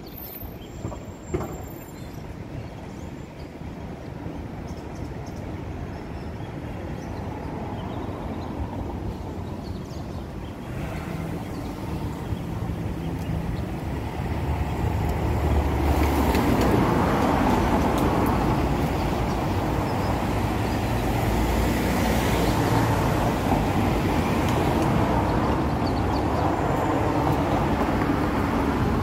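Steady outdoor traffic noise, a low rumble that grows louder about halfway through.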